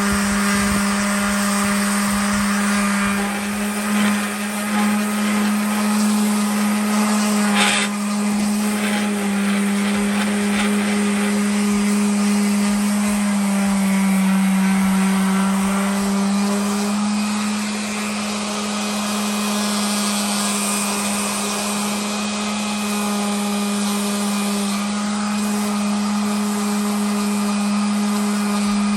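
Electric sander running steadily as it sands down a table saw's top with 220-grit paper, its pitch dipping slightly for a couple of seconds midway as it bears down. A sharp click about eight seconds in.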